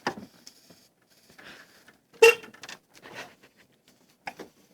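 Short hisses of an aerosol spray can being squirted, with a few light clicks, then a single loud sharp knock about two seconds in.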